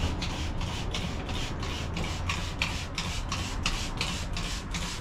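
A gloved hand scrubbing or rubbing the fiberglass hull floor of a boat's bilge in quick, even strokes, about three a second.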